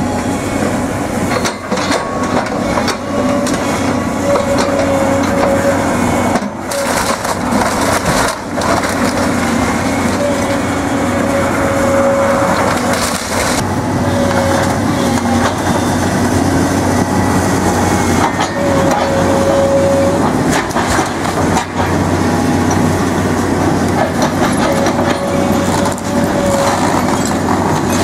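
Hyundai 180LC-7 excavator's diesel engine and hydraulics working hard, with a whine that comes and goes, while its demolition grapple crushes and rips house timber and roofing with repeated cracks and crunches.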